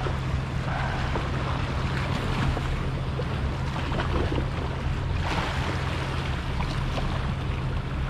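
Wind on the microphone and sea water washing against the rocks, over a steady low hum.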